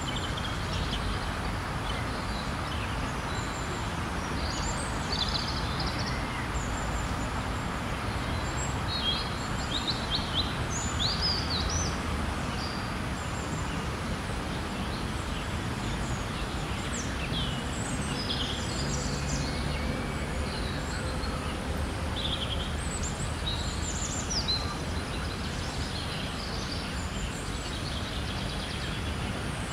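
Outdoor ambience: a steady low rumble under many short, high bird chirps and calls scattered throughout.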